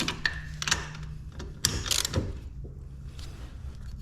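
A few separate metallic clicks and clunks from hand tools and bolt hardware while a toolbox caster wheel is fitted and fastened, the loudest near the start and about two seconds in.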